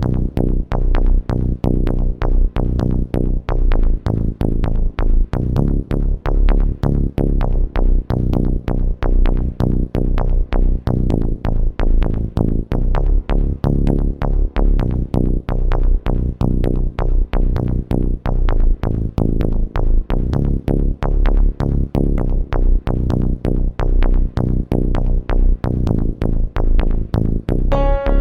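Electronic background music with a steady, driving beat and heavy bass.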